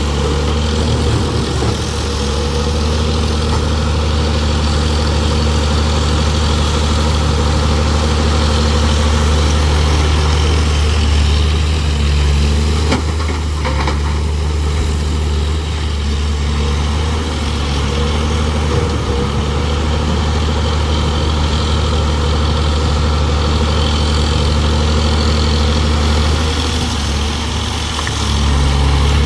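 Large diesel engine of heavy earthmoving machinery running steadily at an even speed.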